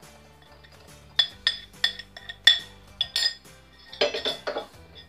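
A metal spoon and glass bowl clinking against a stainless steel mesh strainer while sugar-coated candies are scraped in: about eight sharp, ringing clinks, then a short rattling clatter near the end as the strainer settles into the bowl beneath. Soft background music plays under it.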